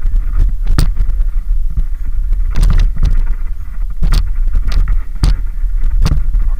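Mountain bike riding a gravel trail: a steady low rumble of tyres and wind on the bike-mounted camera's microphone, broken by about six sharp rattling knocks as the bike hits bumps.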